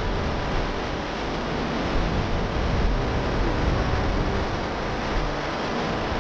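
Waterfall crashing down close by: a steady rushing of falling water.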